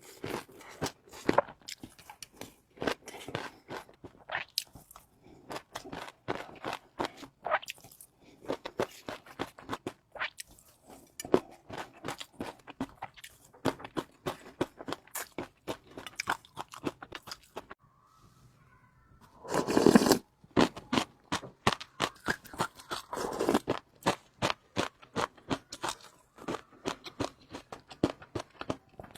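Close-miked eating: irregular crunching and chewing with many sharp wet clicks, and a louder, longer crunching stretch about two-thirds of the way through.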